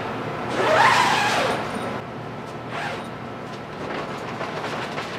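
Heavy zipper on a fabric garage tent's door being pulled open: a rasping sweep about a second in. Softer rustling and scraping of the tarp fabric follow as the door panel is gathered up.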